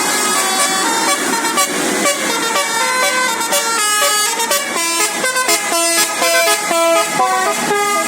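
Basuri telolet bus horn playing a fast melody of stepped notes, the notes plainer and more separate in the second half.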